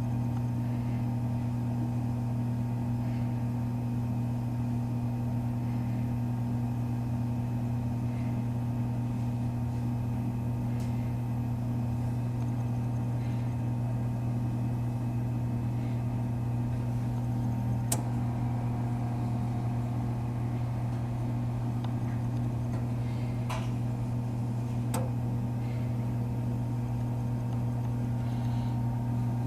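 Toaster oven running while baking a circuit board to reflow its solder: a steady low electrical hum, with a few sharp clicks about two-thirds of the way in.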